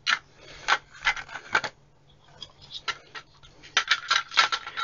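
Plastic housing halves and circuit board of a handheld thermal imager clicking, knocking and rubbing as they are handled. The clicks and scrapes come in a cluster of about a second and a half, then a pause, then a denser cluster near the end.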